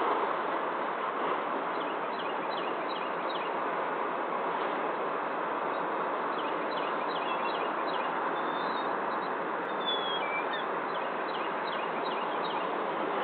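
Birds chirping, short high notes in scattered runs, over a steady outdoor rushing noise.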